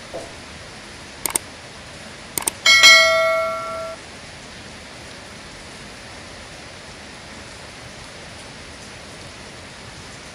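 Steady hiss of falling or sprayed water, as in a rain bath. A couple of sharp clicks come about a second and two and a half seconds in, then a metallic clang about three seconds in that rings for about a second.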